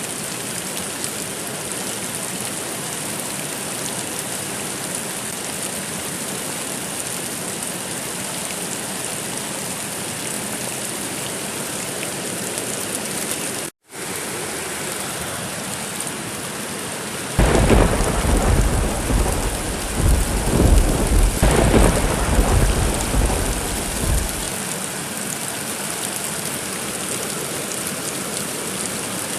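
Steady rain falling, with a long rumble of thunder that starts a little past halfway and rolls on for about seven seconds in several surges. Just before halfway the sound cuts out for an instant.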